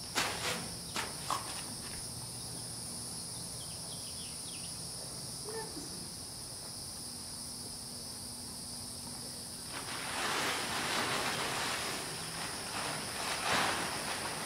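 Blue plastic tarp crinkling in a few sharp crackles under a horse's hooves near the start, then from about ten seconds in a loud, rustling crackle as the tarp is picked up and shaken. A steady high insect drone runs underneath.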